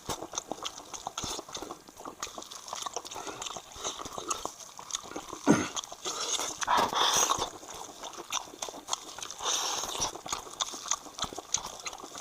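Close-miked eating of spicy lamb head meat: a steady run of wet mouth clicks and smacks from chewing, with a couple of longer, noisier stretches and one loud sharp smack about five and a half seconds in.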